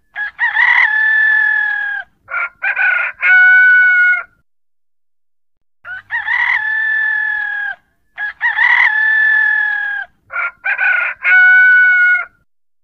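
Rooster crowing, with long held crows broken up by short choppy notes, in two similar runs separated by a pause of about a second and a half.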